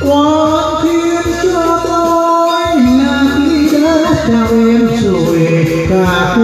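A man singing a slow song into a karaoke microphone over a backing track, holding long notes that bend in pitch.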